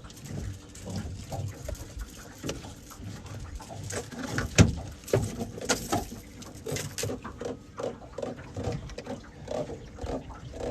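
Irregular knocks, taps and rustling of close handling noise, with one sharp, loud knock about four and a half seconds in.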